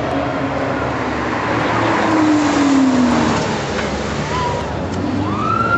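Sports car engines running among traffic noise. One engine note slides down in pitch about two to three seconds in, and a higher tone rises and holds near the end.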